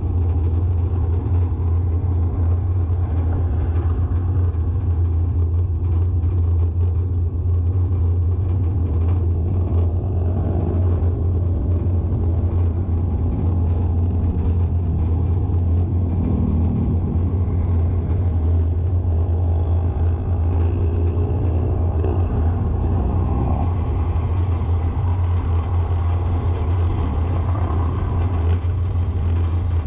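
Steady low rumble of a car being driven along a paved street, engine and tyre noise heard from the moving vehicle, with a faint engine note now and then rising and falling.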